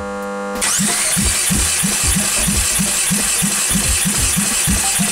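Starter cranking a Hyundai G4NA 2.0-litre four-cylinder engine that does not fire, with a regular chug about four times a second from the compression strokes. This is a compression test on cylinder two, which reads 13.5 kg/cm². The cranking stops near the end with a falling whine as the starter spins down.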